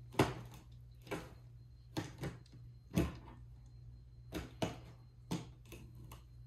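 A cat pawing and scratching at the top of a cardboard box: a string of short, irregular scratches of claws on cardboard.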